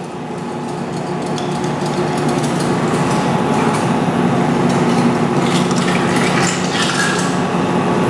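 Large machine tool running with a steady hum, getting louder over the first couple of seconds, with scattered light metal clinks in the second half.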